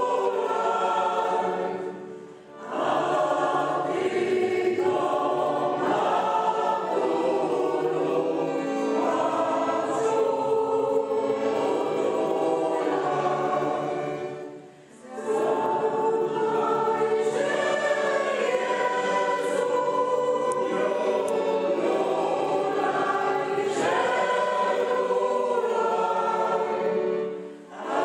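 A choir singing in long sustained phrases, broken by two brief pauses, with another pause near the end.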